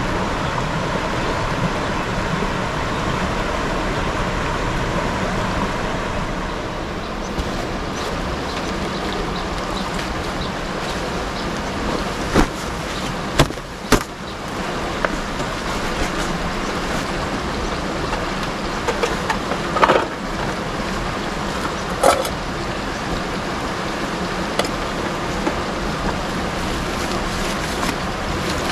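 Shallow river rushing over rocks, a steady hiss of running water. Partway through, a handful of short knocks as camp gear is handled.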